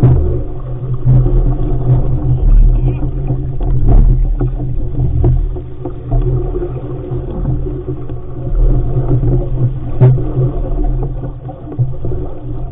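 Wind buffeting the camera microphone aboard an RS500 sailing dinghy, a heavy, gusting rumble that swells and eases, with water rushing along the hull and a few sharp knocks.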